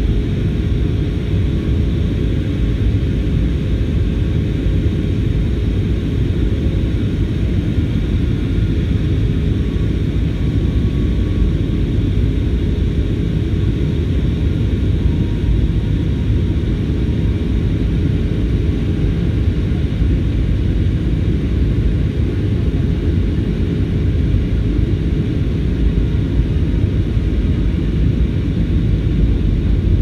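Steady cabin noise inside an Airbus A320-family airliner in flight: a low, even rumble of the engines and rushing air, with a faint steady hum running through it.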